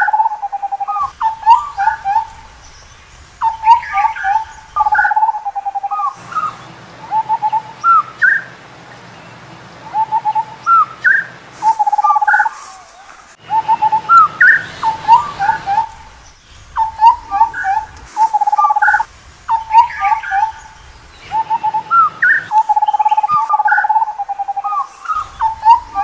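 Indian scimitar babbler calling: short phrases of rising whistled hoots and a low bubbling trill, repeated in bursts every second or two with brief pauses between.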